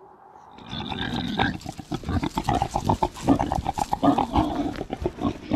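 Kunekune pigs grunting in quick, rhythmic succession, starting about half a second in: a boar's courting grunts as he nudges a sow at breeding time.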